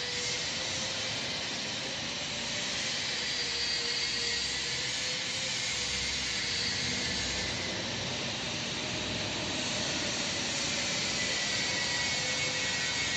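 Turntable pallet stretch wrapper running, its turntable turning the load while the film carriage winds on stretch film: a steady mechanical whirr with a faint, slightly wavering hum.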